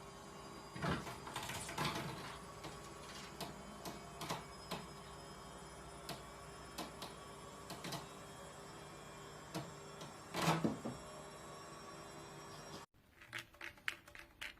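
Scattered light clicks and taps over a steady electrical hum. The sound cuts off suddenly near the end and gives way to a run of quicker, fainter clicks.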